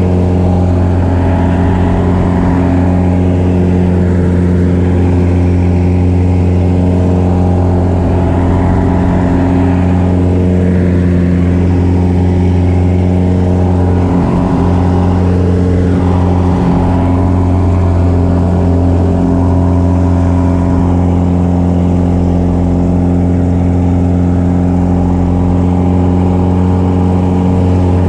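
Piston engine and propeller of a single-engine aerobatic plane heard from inside the cockpit, running steadily through aerobatic manoeuvres, with a slight wavering in pitch around the middle.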